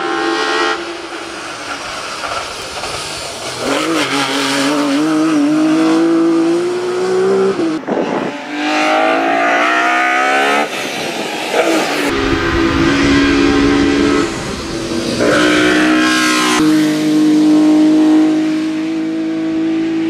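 Race-prepared Ford Escort Mk2 hillclimb car driven flat out, its engine climbing in pitch as it accelerates. The sound jumps abruptly where separate passes are cut together.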